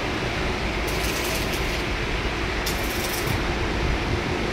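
Steady mechanical hum, with two short bursts of hiss about one second and three seconds in.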